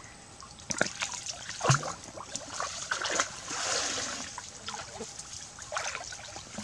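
Stream water splashing and sloshing as hands and legs move through it, groping along the muddy bottom. Irregular small splashes start about a second in, with a longer slosh around the middle.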